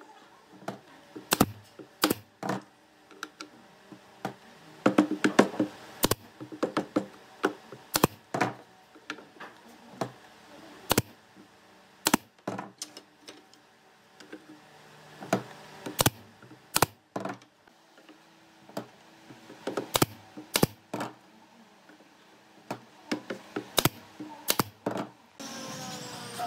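Irregular sharp knocks and taps of hand woodworking, tools and wooden parts being struck and set down, some in quick clusters of several hits. A steady noise starts just before the end.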